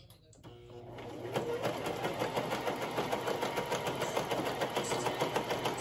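Brother domestic sewing machine stitching through tapestry-blanket fabric. The motor builds up speed over the first second or so, then runs at a steady, rapid, even stitching rhythm.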